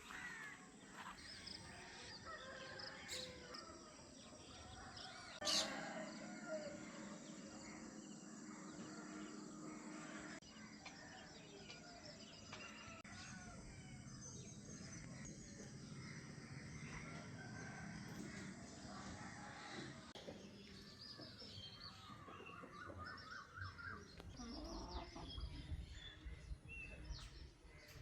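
Faint village morning ambience: many small birds chirping and calling, with domestic chickens clucking. A brief louder call stands out about five and a half seconds in.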